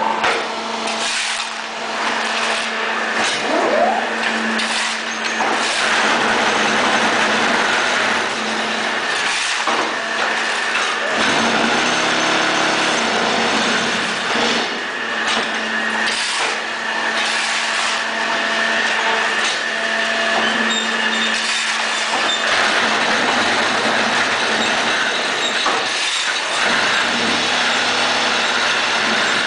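Automatic concrete block making machine running: a steady motor hum under repeated metallic clanks and knocks of its moulding cycle and pallets.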